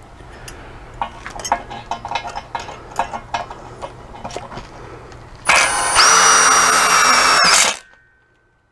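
Light clicks and taps of hardware being handled, then a cordless drill with a nut driver bit runs for about two seconds, driving a self-tapping screw to fix a gate latch to the post, and stops abruptly.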